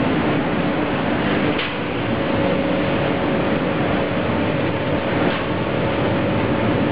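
Induction melting furnace running: a steady, even industrial noise with a low hum of a few steady tones underneath.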